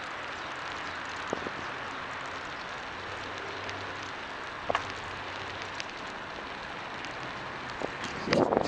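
Steady rushing noise of a bicycle ride on a concrete road: wind on the microphone mixed with tyre rolling noise, with a few light clicks and a louder burst of noise near the end.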